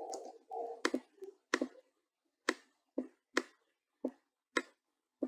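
Sharp, separate clicks of a computer mouse, about eight at uneven spacing.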